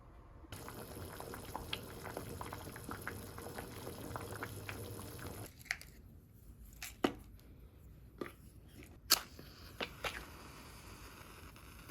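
A wet, crackly liquid noise for about five seconds, then about half a dozen separate sharp clicks and knocks of kitchenware.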